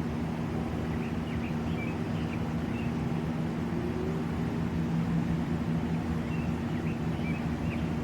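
Steady low motor drone, with faint short bird chirps in two brief clusters, one early and one near the end.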